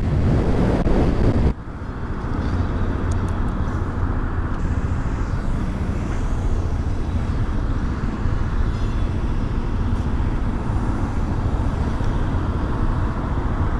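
Honda motorcycle engine running at a steady low speed, with road and traffic noise. Loud wind noise on the microphone stops suddenly about a second and a half in.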